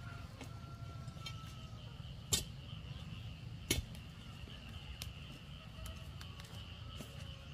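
Two sharp knocks about a second and a half apart, over a steady low rumble and a steady high-pitched hum.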